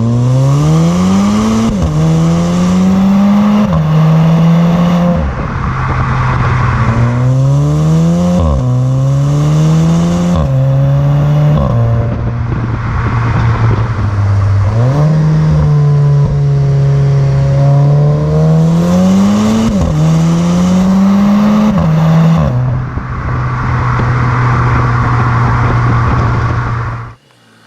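Mk7 Volkswagen Golf R exhaust on its 2.0-litre turbocharged four-cylinder, accelerating hard three times, each pull climbing in pitch through two upshifts with a sharp drop at every gear change before settling into a steady drone. The sound cuts off abruptly near the end.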